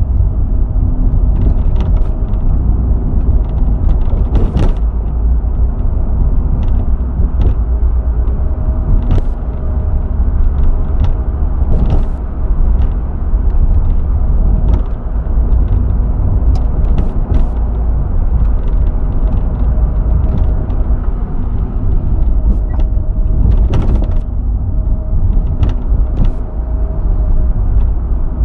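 Ford Fiesta driving with a steady low road and engine rumble, and irregular knocks and clunks from the rear every second or few. The knocking is the sign of a failed silentblock (rubber bushing).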